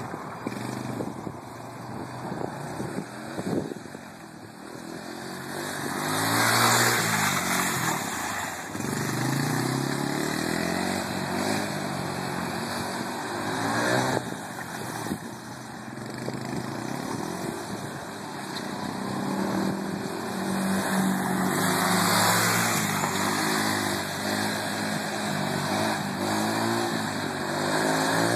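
Small youth ATV's engine revving up and down again and again as it circles and drifts on concrete, swelling louder as it comes near and fading as it pulls away.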